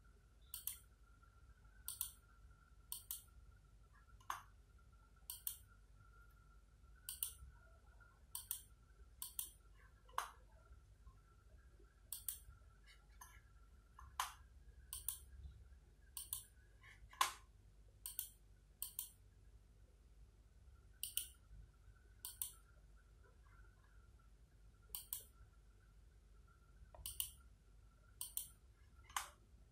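Computer mouse button clicks on a DVR menu: short sharp clicks, mostly in quick pairs, every second or two at an uneven pace, with a few louder ones. A faint steady high tone sits underneath.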